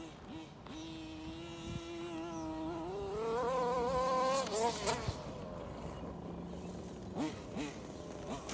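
Losi RC car's motor running at speed, a thin buzzing note that holds steady, then climbs in pitch and wavers as the car accelerates over rough grass, cutting off sharply about five seconds in. A couple of short throttle blips follow near the end.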